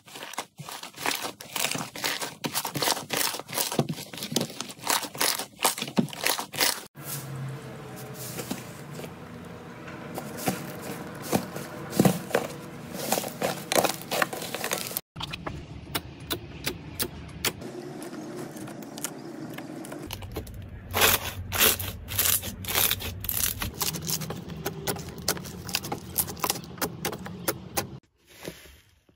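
Slime being stretched, squeezed and kneaded by hand, giving dense runs of crackling clicks and pops. The texture of the sound changes abruptly three times, about 7, 15 and 28 seconds in.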